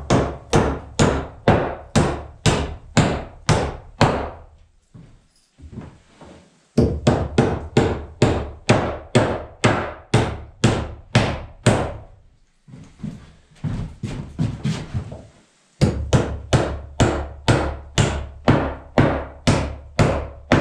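Hammer driving 4-inch steel spikes through 2x6 studs and a wooden bottom plate. Three runs of steady, sharp blows, about two to three a second, broken by two short pauses with a few lighter taps.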